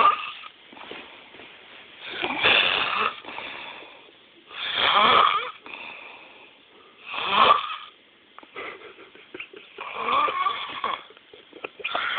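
A man snoring in a steady rhythm: four drawn-out snores, about one every two and a half seconds, with a raspy, wheezing edge and quieter breathing between them.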